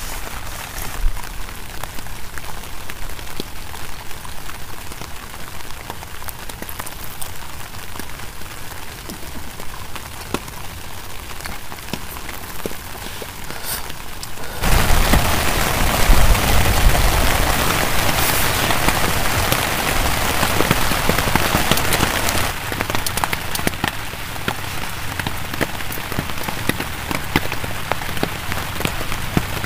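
Steady rain pattering on a nylon tarp shelter, a dense patter of small drop taps. About halfway through it grows heavier and louder for several seconds, then eases back.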